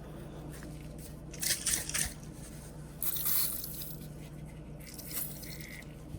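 Short bursts of rustling and scraping from wiping and scrubbing rust off a vintage Barlow pocketknife blade, over a steady low hum.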